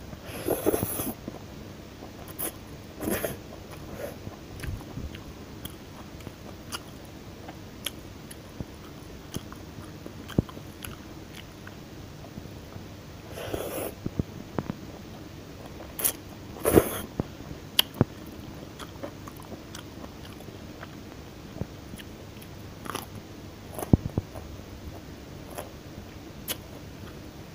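A person chewing and biting food close to the microphone: scattered small wet mouth clicks with a handful of louder crunchy bites, the loudest about seventeen seconds in.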